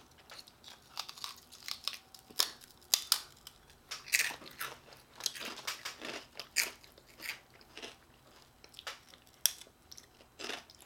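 Two children chewing and crunching lentil chips: irregular crisp crunches, a few of them much louder than the rest.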